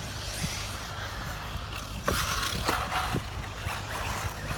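1/8-scale electric off-road RC buggies running on a dirt track: a steady hiss of tyres and dirt with a few sharp knocks.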